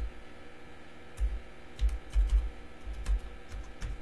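Typing on a computer keyboard: about ten uneven keystrokes beginning about a second in, a password being entered.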